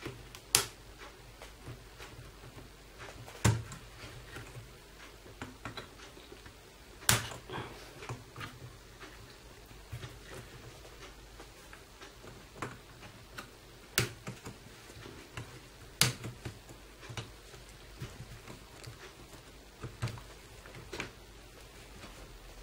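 Short, sharp plastic clicks and taps at irregular intervals a few seconds apart, as a pry tool works under the edge of a Dell Latitude E7250 laptop keyboard and its latches snap loose.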